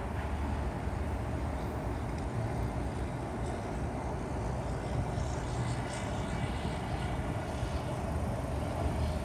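Steady rumble of road traffic on an elevated highway.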